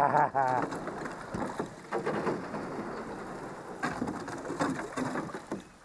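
Thin lake ice crunching, crackling and tinkling against a small boat's hull as the boat breaks through it, with a brief wavering call about half a second in.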